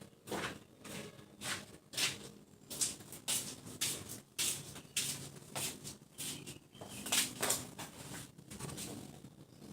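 Caged kutilang emas (golden bulbul) making a run of short, harsh, scratchy bursts, about two or three a second and irregular, with no clear whistled song.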